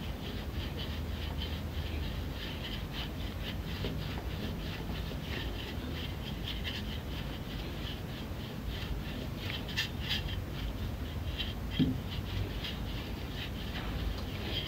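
Wooden rolling pin rolling dough flat on a tiled counter: a steady run of short back-and-forth rubbing strokes, a few a second.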